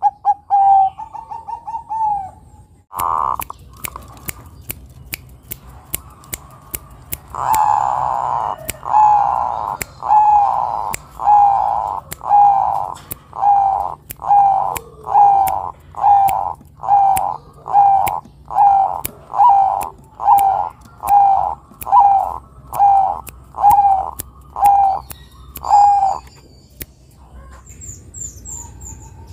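Zebra dove (perkutut) cooing: a run of short, even coos at about one a second for nearly twenty seconds, after a few quick trilled notes at the start and a louder burst a few seconds in. Sharp ticks sound throughout, and faint high chirps come near the end.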